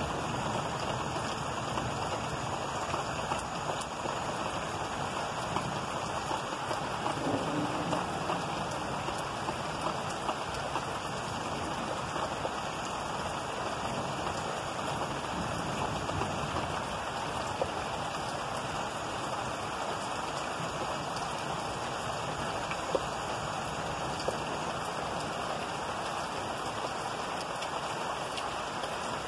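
Steady rain falling during a storm, an even hiss with scattered sharper drop ticks.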